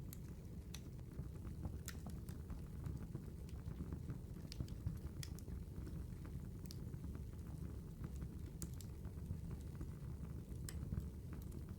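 Campfire crackling: irregular sharp snaps and pops over a steady low rushing noise.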